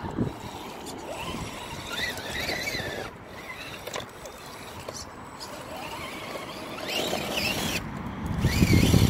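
Electric motor and gearbox of an Axial SCX10 RC rock crawler whining as it crawls through mud, the whine rising and falling in pitch with the throttle. A louder low rumble comes near the end.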